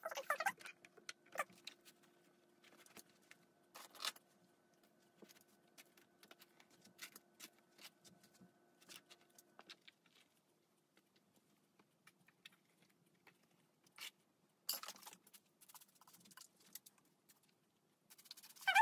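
Quiet handling noises: scattered light clicks, taps and rustles as a long curly lace wig is lifted and adjusted on a mannequin head. A faint steady hum stops about halfway through.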